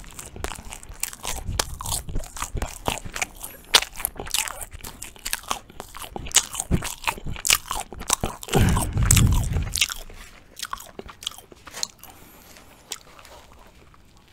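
Close-miked mouth sounds of a man chewing Turkish Ramadan flatbread spread with ajvar: a dense run of short crackly clicks. About nine seconds in there is a louder, deeper sound lasting about a second, and the chewing gets quieter after that.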